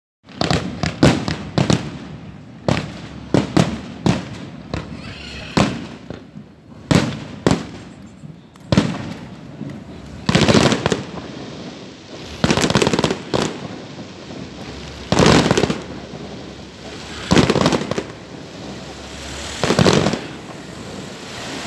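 Fireworks display bursting overhead. A quick run of sharp bangs fills the first half, then longer volleys of rapid reports come about every two seconds.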